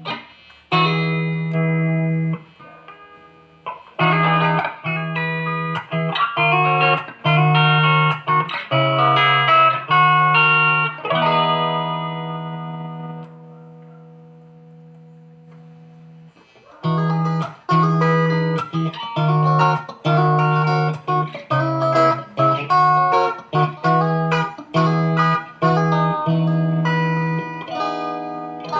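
Ibanez GIO electric guitar being played: single picked notes over a ringing low note. The first phrase fades out about halfway through, and a second phrase of picked notes follows.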